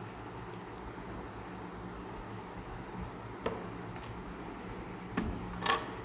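Light clicks and taps of clear plastic RJ45 connector plugs handled in the fingers, with a few small ticks in the first second and louder clicks near the end.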